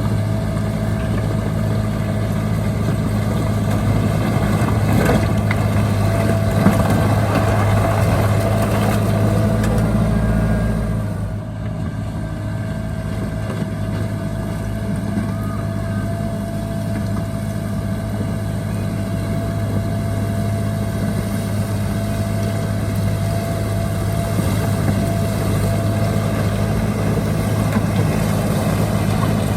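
Heavy diesel engine of a bulldozer running steadily under load, with a steady whine above the engine note. It eases off briefly about eleven seconds in, then carries on.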